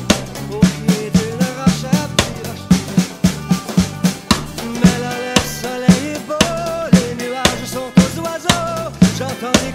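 Music: a recorded song with a snare drum playing a steady eighth-note accompaniment over a bass line and a wordless melody.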